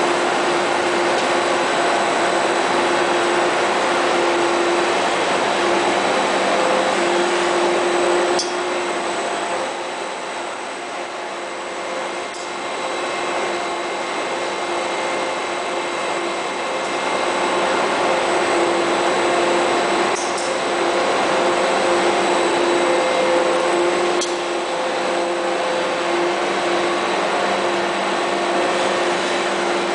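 Workshop machinery running steadily: a motor's hum and whine with several steady tones over mechanical noise. It eases off somewhat for a few seconds about a third of the way in, and a few sharp clicks come through.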